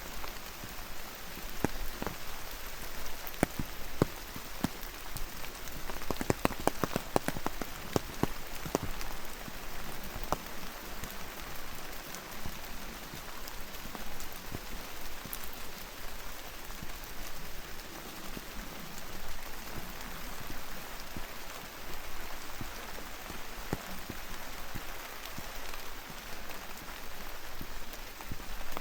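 Steady rainfall with scattered sharp drop impacts close by, a flurry of them about six to nine seconds in.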